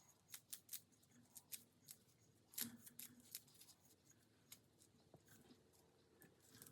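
Faint, sharp clicks and snips of hands working with gold-leaf craft materials, about ten in the first four and a half seconds with the loudest about two and a half seconds in, then sparser.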